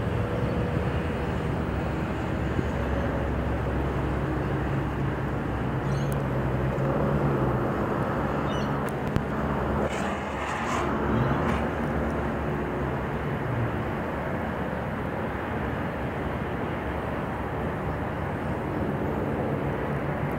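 A steady engine drone under a noisy rush, its pitch drifting slightly up and down.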